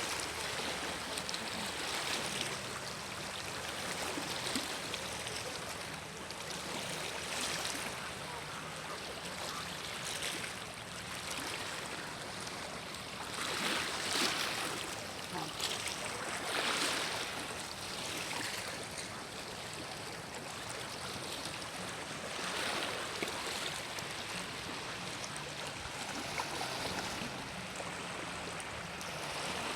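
Sea waves washing onto a beach, a steady rush that swells every few seconds as each wave breaks.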